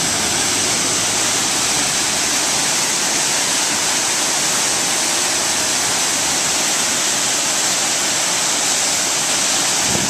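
Large waterfall and the fast stream below it, a steady, even rush of water. The falls are running after a heavy downpour, which may have swollen them.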